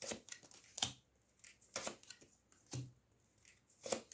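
Tarot cards being drawn and laid down on a table: short crisp snaps and slides of card stock, about one a second.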